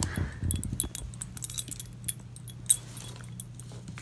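Metal tags on a dog's collar jingling in short, irregular clinks as the dog moves its head over a toy, with one sharper clink a little past halfway, over a steady low hum.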